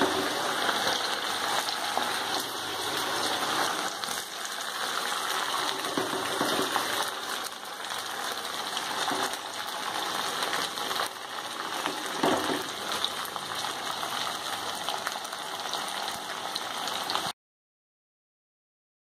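Chicken pieces coated in maida and cornflour deep-frying in hot oil in an iron kadai: a steady sizzling hiss with scattered small pops. It stops abruptly near the end.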